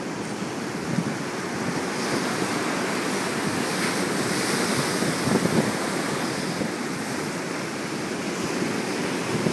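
Ocean surf breaking and washing against the rocks of a stone jetty, a steady rushing wash that swells louder in the middle as a wave comes through.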